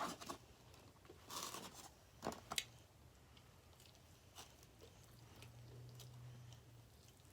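Pizza being bitten and chewed: a few soft crunchy bites and mouth sounds in the first three seconds, then near silence.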